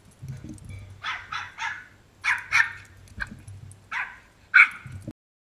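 A small dog, the Pomeranian, barking in short, high yapping barks, about eight in quick groups, the last one the loudest. The sound cuts off abruptly about five seconds in.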